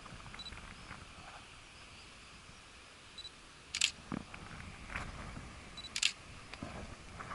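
A digital camera beeps three times with a short high focus-confirm tone, and its shutter fires twice, each click coming a moment after a beep, over a low steady background rush.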